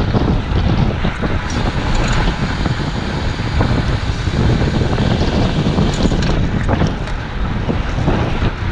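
Wind rushing over a GoPro's microphone on a road bike ridden at about 25 to 28 mph, a loud, steady rumble.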